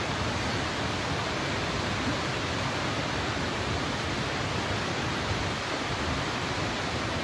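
Steady rushing of fast-flowing floodwater, an even, unbroken roar.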